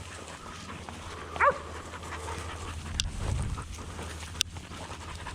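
Blue lacy herding dog panting, with one short, sharp high call about a second and a half in.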